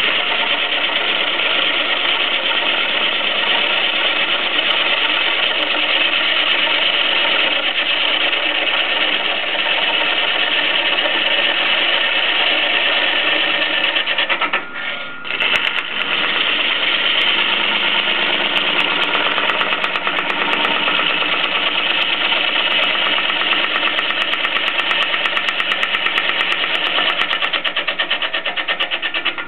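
Gouge cutting a large wood blank spinning on a wood lathe: a steady, loud cutting noise, broken once for about a second about halfway through.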